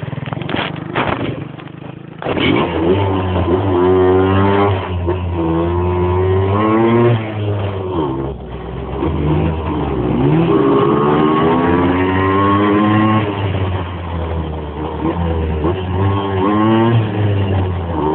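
Motorbike engine revving and accelerating, its pitch climbing and falling again several times, with a brief drop in level about two seconds in.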